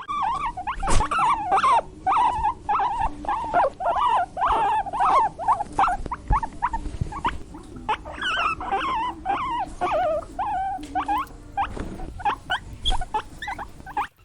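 Guinea pigs squeaking: a steady run of short, high squeaks, several a second, that stops suddenly near the end.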